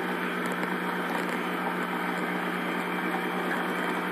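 Electric stand mixer running steadily with its twin beaters turning through batter in a glass bowl, giving an even motor hum.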